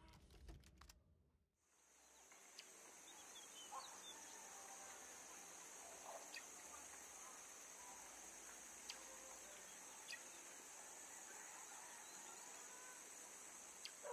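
Near silence: a faint, steady high-pitched hiss of background ambience, with a few soft scattered clicks and faint chirps.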